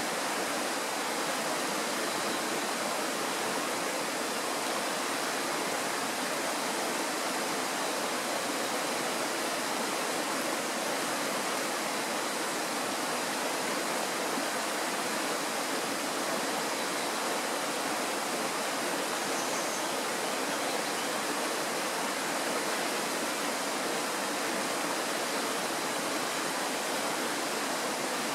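Kirowa Woda, a Tatra mountain stream, rushing with a steady, even sound of flowing water that does not change.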